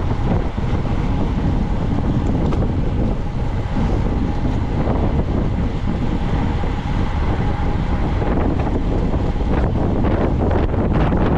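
Wind buffeting the microphone of a camera moving at bicycle racing speed, a loud, steady, low rush.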